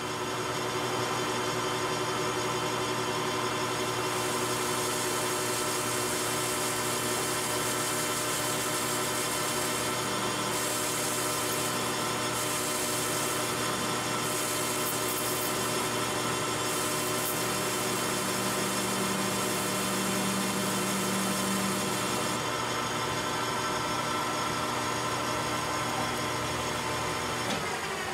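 Metal lathe running with a steady whine from its spindle drive, while a carbide-insert turning tool chamfers the edge of a spinning steel part. A higher hiss of cutting joins from about four seconds in until a few seconds past the middle, and near the end the pitch starts to fall as the lathe slows.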